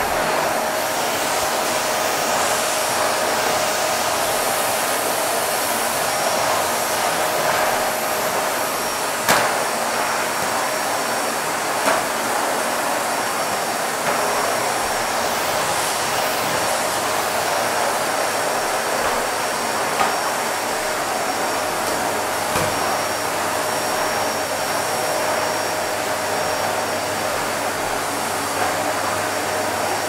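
Vacuum cleaner running steadily: a continuous even rush of air with a faint steady whine, and a few brief clicks scattered through.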